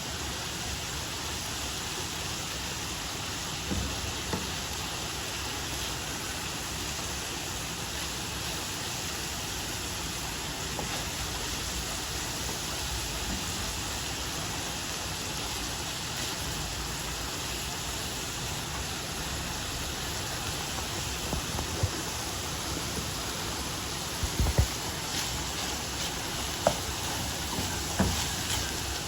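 Steady sizzling of food frying in a pan, with a few short knocks and clicks, most of them in the last third.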